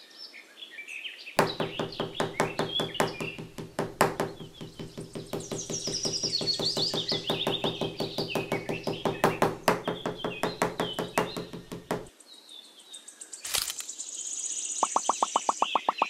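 Small motor running with a steady hum under regular clicking, about five clicks a second, with birds chirping high above it. The hum and clicking stop about twelve seconds in, leaving birdsong.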